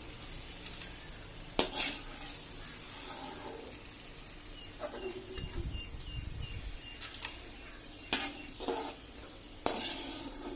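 Sweet potato strips sizzling in hot oil in a kadai as they are scooped out with a metal ladle, which knocks sharply against the pan three times and clatters lightly in between.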